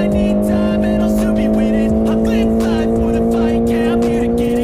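Honda CBR650R's inline-four engine running through an IXIL full-system exhaust with the dB killer removed, pulling steadily under way with its pitch creeping slowly upward as the revs build.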